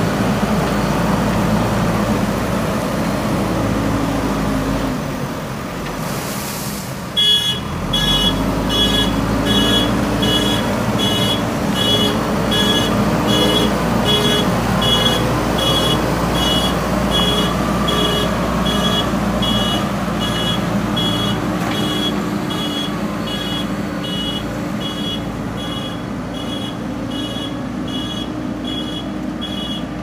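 JCB 3DX backhoe loader's diesel engine running as it works through a shallow river. About seven seconds in, its reversing alarm starts beeping, about three beeps every two seconds.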